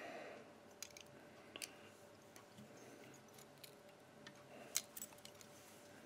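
Faint, scattered small clicks and ticks of hackle pliers and other fly-tying tools being handled at the vise while a partridge hackle is wrapped, with one sharper click about five seconds in.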